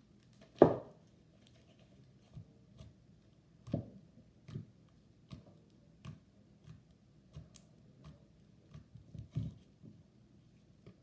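Hands pressing and poking a buttery slime, making soft irregular taps, clicks and pops, with one louder knock about half a second in.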